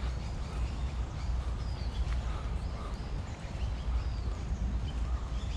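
Outdoor woodland ambience while walking: a low, uneven rumble on the camera microphone with footsteps on a stone path, and a few faint, short bird chirps.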